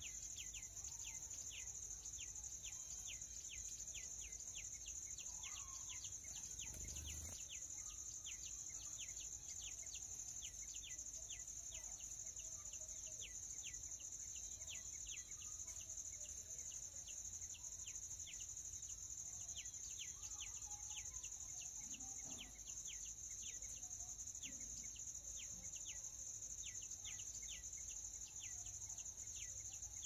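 Night insect chorus: a steady high-pitched cricket trill, with short falling chirps repeating about twice a second.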